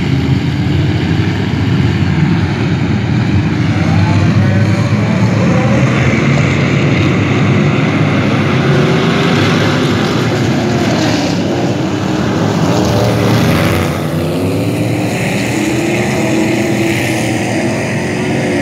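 A pack of dirt-track stock cars racing, many engines running at once and rising and falling in pitch as the cars work through the turn.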